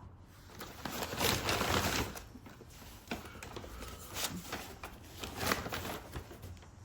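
Rustling and handling noises as school supplies and books are taken out of a paper grocery bag, with irregular light clicks and knocks, loudest about a second in.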